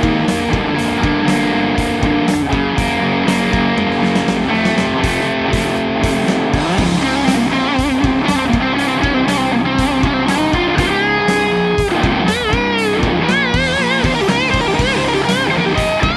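Heavy metal band mix: thick, distorted electric guitar through a Catalinbread Carbide HM2-style "chainsaw" distortion pedal, playing sustained riffs over steady drums. About two-thirds of the way through, a lead guitar line with wide vibrato and bends comes in.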